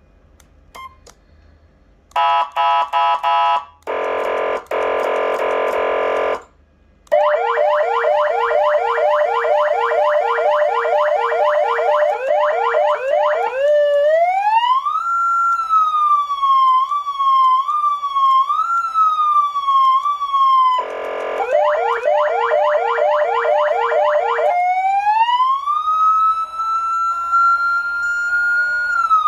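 Electronic siren amplifier and speaker (PA3000, 400 W) stepping through its tones. First come short stuttering horn blasts and a buzzing air-horn tone, then a fast repeating yelp. A wail rises and falls in a zigzag, a brief horn blast cuts in, the fast yelp returns, and the siren ends on a long rising wail.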